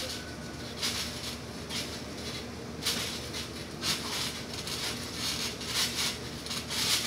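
A trampoline being bounced on: its springs and mat give a short rushing noise about once a second.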